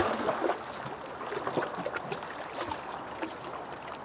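Shallow sea water sloshing and trickling around lava rocks at the shoreline, with small irregular splashes.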